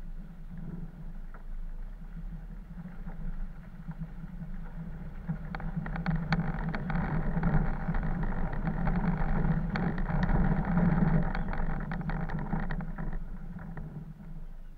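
Four-wheel-drive vehicle driving slowly along a muddy, rutted track, heard from a camera mounted on it: a steady low engine drone with tyre and body noise. It gets louder about halfway through, with many short knocks and rattles, then eases off near the end.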